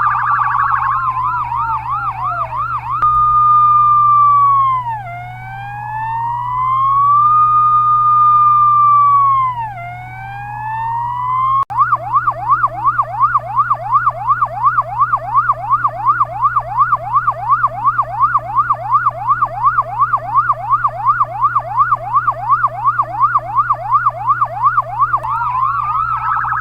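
Chinese ambulance electronic siren, loud over a steady low hum. For the first few seconds a falling wail overlaps a fast yelp. A slow wail then rises and falls about every five seconds. Near the middle it cuts abruptly to a fast yelp of about three sweeps a second, and near the end a wail starts rising again.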